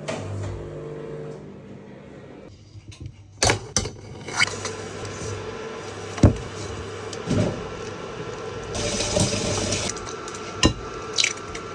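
Water running at a kitchen sink, with several sharp knocks and clatters, the loudest about six seconds in.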